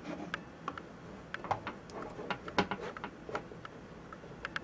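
Irregular small clicks and ticks of pliers working a rubber grommet through the mounting hole of a plastic PC fan frame, several a second, unevenly spaced.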